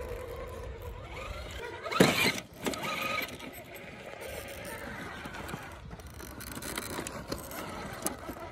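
Radio-controlled rock crawler's electric motor and gears whining as it crawls over rocks, with a sudden loud squealing burst about two seconds in.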